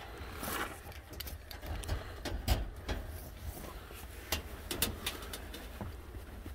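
Scattered clicks and knocks from a wire live trap holding kittens, with a louder knock about two and a half seconds in, over a steady low rumble.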